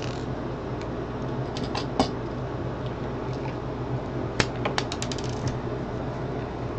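Scattered light clicks and taps of small plastic model railcar parts and a small screwdriver being handled on a desktop, with a little cluster of them about four to five and a half seconds in, over a steady low hum.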